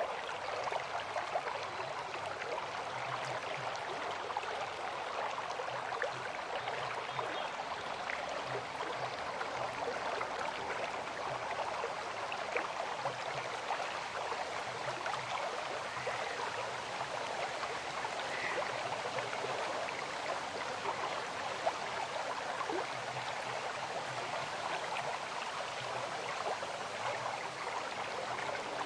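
River water flowing steadily: an even rushing with small splashes scattered through it.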